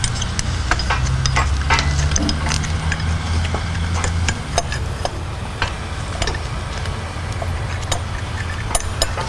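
Scattered light metallic clicks and taps as bolts are started by hand through a cast thermostat housing on a diesel engine, over a steady low hum.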